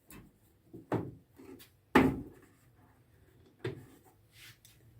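A handful of sharp clicks and knocks from a kitchen range hood's housing being handled and unscrewed during disassembly, the loudest about two seconds in.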